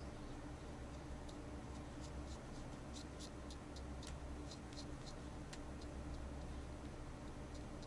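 Nail polish brush dabbing and stirring wet nail polish on a plastic sheet: faint, irregular little ticks, coming thickest in a quick run around the middle, over a steady low hum.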